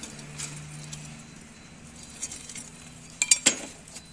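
A metal socket wrench clinking against the bolts of a scooter's cam chain tensioner as it is being loosened: a few light clicks, then a louder cluster of metallic clinks near the end.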